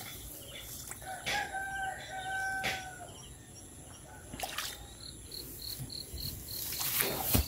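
A rooster crowing once, one long call about a second in that lasts nearly two seconds. Near the end comes a fast series of short high chirps, about four a second, with a few brief rustles between.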